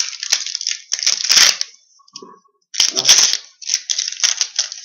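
Foil trading card pack being crinkled and torn open, with cards rustling as they are handled.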